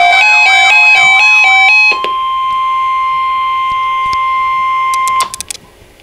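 Weather alert radio sounding its electronic alert melody of quickly stepping beeps, then from about two seconds in a single steady alert tone, the NOAA Weather Radio warning alarm tone that comes before an alert broadcast. The tone cuts off a little after five seconds with a few quick clicks.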